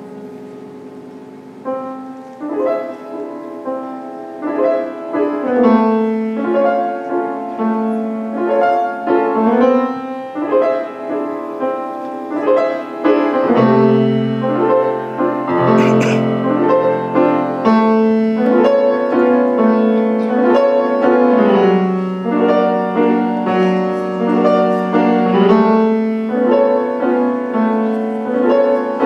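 Solo grand piano played fast, with many quick notes. It starts softly and grows louder and busier about two seconds in, with deep bass notes joining in the middle.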